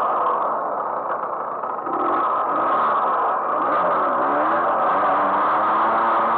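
Moped engine running under way, heard from the rider's seat. It eases off about a second in, then the pitch dips and climbs again as the throttle is opened.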